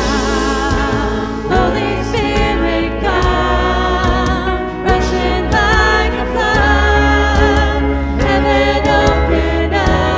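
Worship song: voices singing a held, wavering melody over instrumental accompaniment with a steady low bass and occasional cymbal-like strokes.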